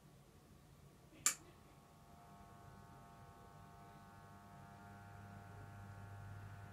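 Model diesel locomotive in Colas Rail livery running slowly along the layout track: a faint low hum that grows louder as it approaches, a sharp click about a second in, and a steady whine of several tones that joins about two seconds in.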